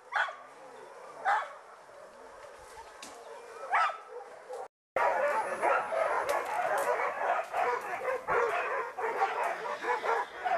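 A pack of hunting dogs barking and yelping: a few single sharp barks in the first half, then, after a brief dropout just before the middle, many dogs barking and yelping at once, louder and continuous.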